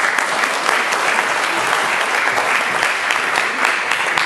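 Audience applauding to welcome a speaker: many hands clapping together at a steady level.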